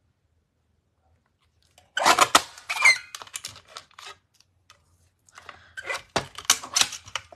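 Stampin' Up! paper trimmer cutting cardstock: the blade scrapes and squeaks along its dry track, which the owner says still wants WD-40. It goes in two bouts, one about two seconds in and another near the end.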